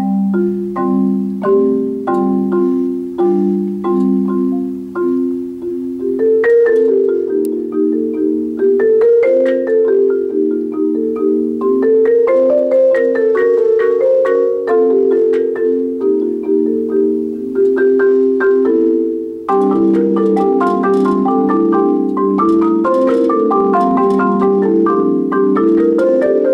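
Solo marimba played with four mallets. It starts with evenly spaced chords, moves to a quicker flowing line of notes about a quarter of the way in, and becomes a fuller, more continuous sound about three-quarters of the way in.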